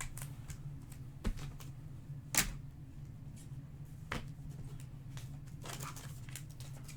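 Trading cards and foil pack wrappers being handled: light rustling and sliding, with three sharp taps, the loudest about two and a half seconds in.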